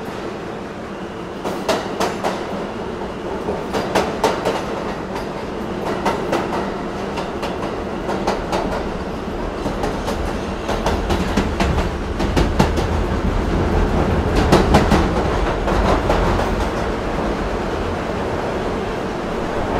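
New York City subway train running on the track, its wheels clacking over rail joints above a steady rumble. The rumble grows heavier a little past halfway.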